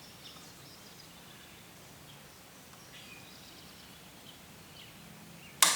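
Vice grips locking shut onto a nail with one sharp metallic snap near the end. Before it, only faint bird chirps over a quiet background.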